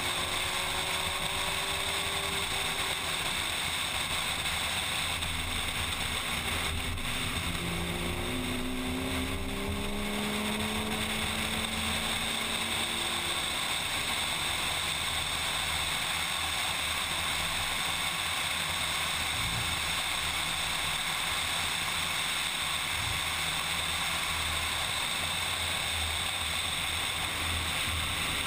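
Onboard sound of a car at speed on a racetrack: steady engine and wind noise, with the engine note shifting in pitch for a few seconds partway through.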